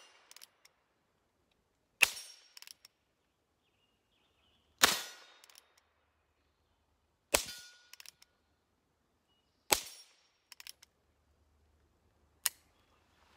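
Suppressed pistol firing subsonic ammunition: five single shots about two and a half seconds apart, each a sharp pop with a short fading tail, followed by a few faint clicks.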